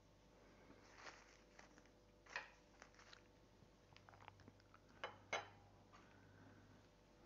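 Faint handling noises of painting tools on a wooden table: soft rustles and a few light clicks and taps, the loudest a quick pair about five seconds in.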